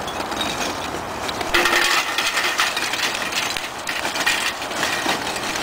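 Lumps of hardwood charcoal pouring from a bag into a metal charcoal chimney: a dense, continuous clatter of pieces tumbling in, growing louder about a second and a half in.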